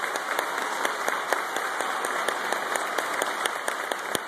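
Large audience of schoolchildren and adults applauding in a school gymnasium: many hands clapping at once in a dense, steady patter.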